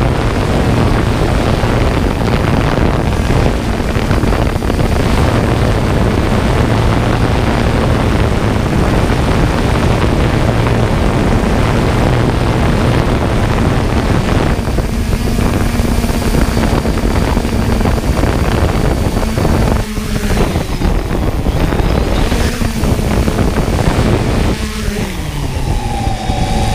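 Quadcopter drone's motors and propellers: a steady buzzing hum with rushing rotor-wash noise as it descends and lands on dirt. Near the end the motor pitch slides down as the propellers spin down.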